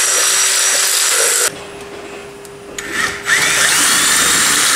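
Power drill running in two long runs, stopping about a second and a half in and starting again after a pause of under two seconds.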